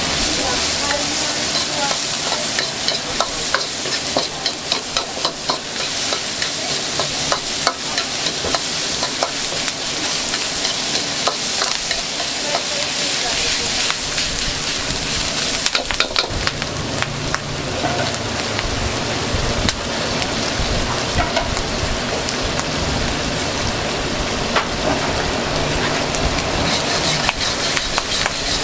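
Fried rice being stir-fried: steady sizzling, with rapid scraping and clanking of a metal utensil against the cooking pan. A low steady rumble joins about halfway through.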